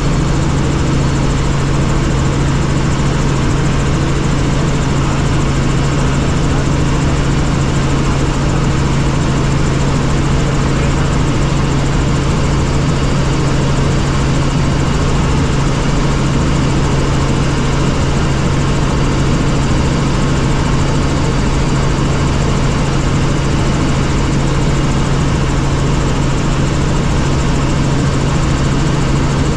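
Helicopter in flight: a loud, steady drone of engine and rotor noise with a strong low hum, unchanging throughout.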